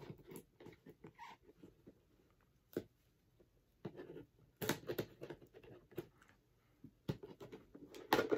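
Scissors and hands working open a cardboard action-figure box: scattered soft clicks, snips and rustles, sparse at first and busier in the second half.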